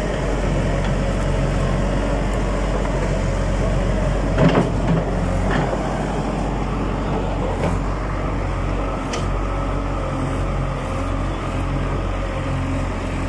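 Backhoe loader's diesel engine running steadily while it digs, with a few short sharp knocks, the loudest about four and a half seconds in.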